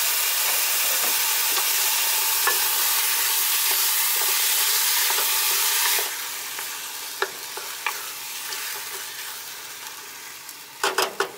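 Chicken in tomato burrito sauce sizzling in a small saucepan over a gas burner. About halfway through the sizzle drops suddenly, and a wooden spoon stirs, scraping and tapping against the pan, with a few louder knocks near the end.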